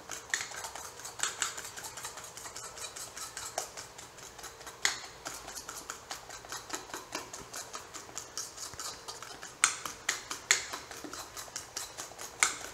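A utensil stirring and beating banana-and-egg batter in a stainless steel bowl: a quick run of wet clicks and scrapes, with a few louder clinks of metal on the bowl's side.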